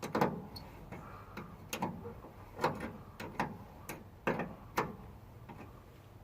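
A series of sharp metallic clicks, irregularly spaced at about two or three a second, from hand tools working the terminal nuts and leads of a Ford F250's starter solenoid.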